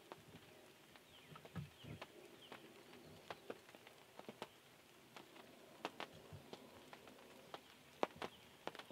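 Faint outdoor quiet, broken by irregular sharp ticks and clicks every half second or so, with a few faint, short, high falling chirps of small birds early on.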